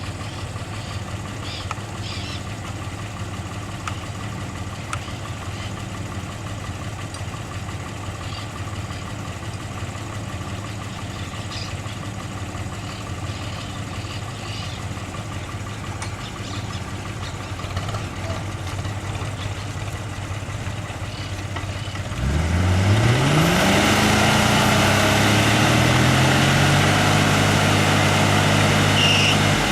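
Off-road vehicle engine idling steadily, then revved up quickly about 22 seconds in and held at high revs, much louder, until it drops back near the end.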